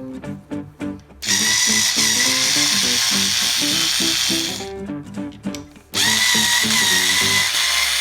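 Electric drill running in two runs of about three and a half seconds each, with a steady high whine. Background music plays throughout.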